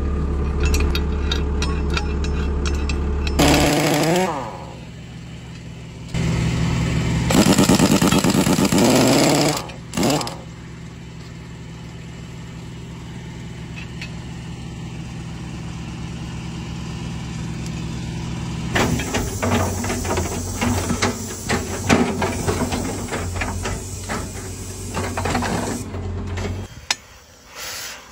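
A motor runs steadily with loud rattling bursts, then rapid mechanical hammering and metal clanks, from power tools working the bolts of rusty steel excavator track shoes.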